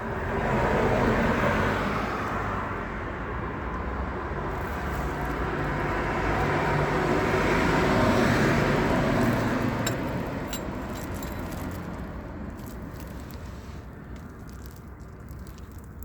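An engine running, loudest about a second in and again around eight seconds, then fading, with a few light clicks near the end.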